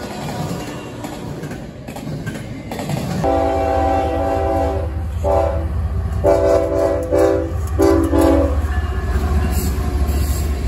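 Freight cars of a passing CSX train rolling along the rails. About three seconds in, a CSX diesel locomotive's air horn sounds a chord in four blasts, three long and the last one short, over the locomotive's deep engine rumble.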